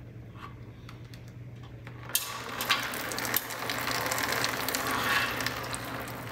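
Oil drips into a drain pan. About two seconds in, the engine is tipped over on its stand, and the oil pours out and splashes into the pan, with scattered clicks and rattles as loose metal pieces, debris from a failed bearing, shift inside the oil pan.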